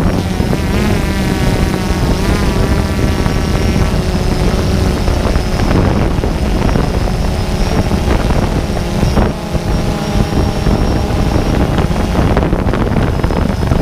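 An engine running with some changes in pitch, with wind noise on the microphone.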